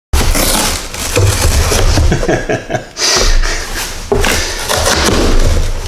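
Cardboard and packing material being pulled and worked loose from a tightly packed, glued-in shipping box: continuous rubbing and scraping with knocks and thumps.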